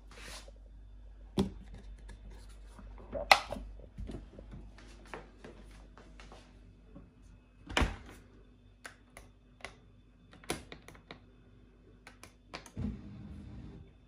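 Dishwasher being loaded and started: clicks and knocks from the detergent tablet going into the dispenser and the door being shut, a few small clicks from the control panel buttons, then the machine's low hum starting near the end.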